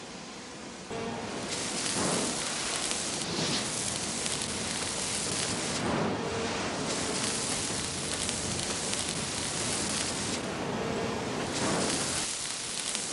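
Hand-held gas blowtorch flame hissing as it sears a raw steak in a metal tray, the meat sizzling. The hiss starts about a second in and swells and eases a few times.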